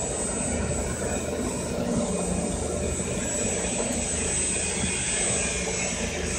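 100L vacuum emulsifying mixer running while it mixes sesame sauce: a steady motor hum with a thin high-pitched whine over it.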